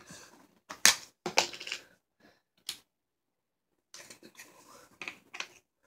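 Round plastic fidget putty tin being opened by hand: sharp plastic clicks as the lid is worked off, the loudest about a second in, then scraping and handling noises as the putty is taken out.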